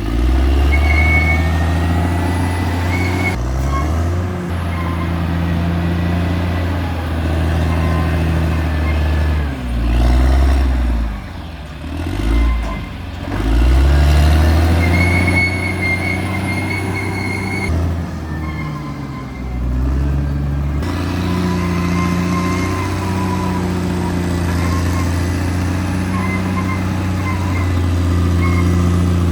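CAT D6R XL bulldozer's diesel engine running under working load, its revs dipping and picking up again about a third of the way in and once more later on, with a faint high squeal coming and going.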